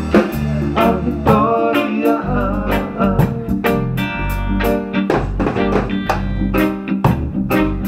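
A live band plays an instrumental passage: electric guitar over a drum kit and a bass line, with a steady beat of about two hits a second.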